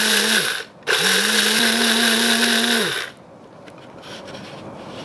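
Small electric blade spice grinder cracking rice grains, run in short pulses. The motor winds down about half a second in, starts again and runs for about two seconds, then stops.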